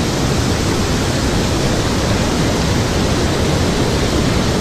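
Steady rushing of fast river water, an even loud noise.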